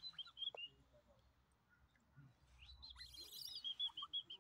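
Small songbirds chirping: a few chirps near the start, then a quick run of repeated high chirps with some twittering through the second half.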